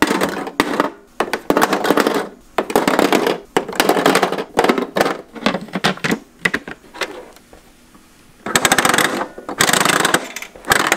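Hollow plastic gacha capsules clattering and rattling as they are dropped into the clear plastic hopper of a miniature Bandai gashapon machine, in a run of quick bursts of clicks and knocks, a pause about two thirds of the way through, then two more loud bursts.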